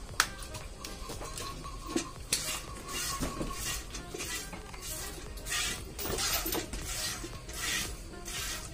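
Buffalo being milked by hand into a steel bucket: the milk squirts hiss against the metal with each squeeze, in short spurts at irregular intervals of about a second.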